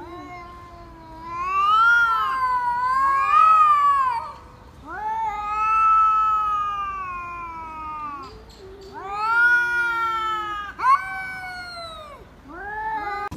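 A cat yowling in a string of about five long, drawn-out meows that rise and fall in pitch, as if answering back.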